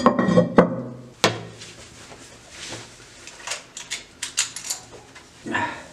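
Ceramic toilet tank lid set back onto the cistern: a few hard clunks and scrapes with a short ring in the first second or so, then scattered light ticks and rustles.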